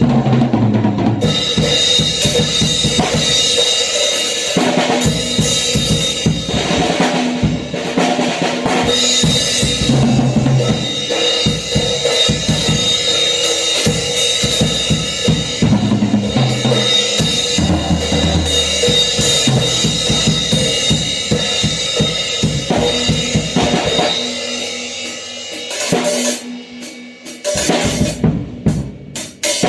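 A drum kit played fast and hard: bass drum and snare under a constant wash of crash and ride cymbals, broken every few seconds by tom fills. Near the end the playing thins out into scattered hits with short gaps.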